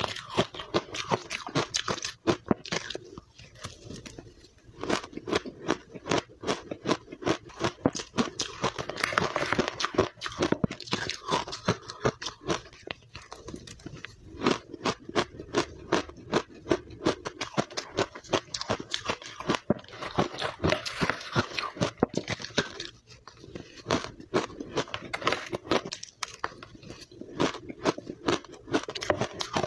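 Close-miked crunching and chewing of blender-crushed powdery ice eaten by the spoonful: rapid, dense crunches in long runs, with a few brief lulls between mouthfuls.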